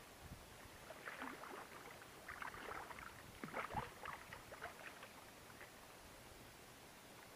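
Water splashing as a hooked wels catfish thrashes at the surface: a run of irregular splashes, loudest about three and a half seconds in, then dying away.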